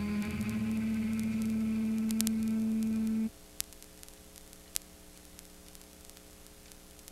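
A sustained musical note that cuts off abruptly about three seconds in, followed by a low, steady hum and hiss from the analog recording, with two faint clicks.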